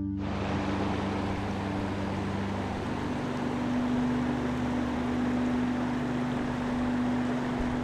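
Ambient background music with sustained low notes that change about three seconds in, over a steady rushing noise.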